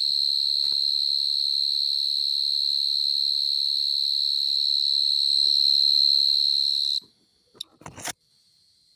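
Burrowing cricket calling: a loud, steady, high-pitched trill that cuts off abruptly about seven seconds in. A couple of faint, brief knocks follow near the end.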